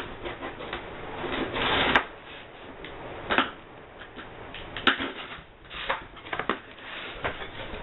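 Shipping packaging being handled while a parcel is unpacked: rustling and crinkling, with several sharp clicks and knocks, the loudest near 2 s and 5 s in.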